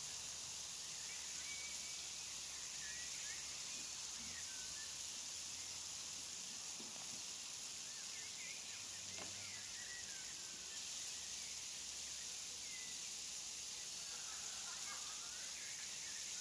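Lamb-fat-wrapped minced-beef skewers sizzling faintly on an electric grill plate: a steady high hiss with scattered small crackles.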